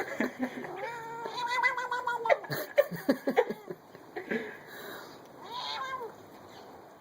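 Domestic cat making strange calls: a drawn-out wavering yowl about a second in, then a quick run of short clicking sounds, and a shorter call near the end.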